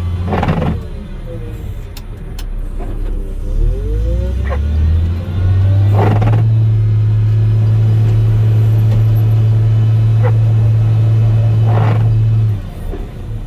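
Volvo L70F wheel loader's diesel engine heard from inside the cab, running lower at first, then revving up about five seconds in and holding steady under load as the front plow blade pushes slush, easing off near the end. Several short loud clunks stand out over the engine.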